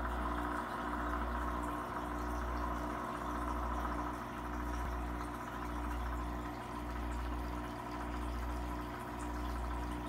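Aquarium pump running: a steady electric hum with a low throb that swells and dips about once a second, over a soft hiss of moving water.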